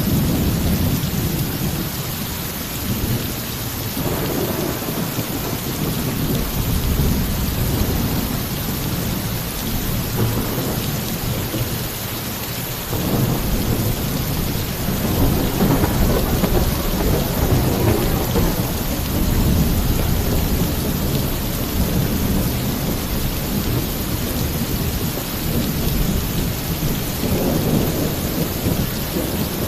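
Torrential rain pouring steadily onto a roof, with deep rolling thunder rumbling underneath. The thunder swells suddenly about thirteen seconds in and keeps rolling, with another swell near the end.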